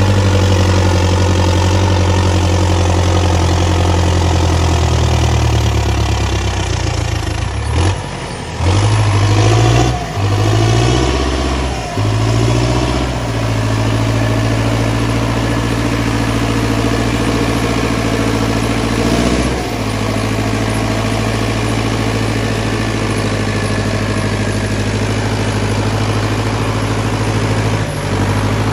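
Ursus 914 Turbo tractor's turbo diesel running steadily under load. About a third of the way in the engine note drops briefly, then sags and recovers a few times before settling back to a steady pull.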